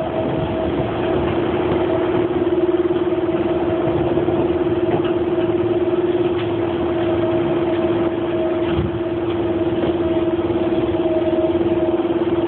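Steady electrical hum inside a train carriage, one constant tone that never changes pitch, over the carriage's background rumble. The uploader takes it for a strange noise aimed at him.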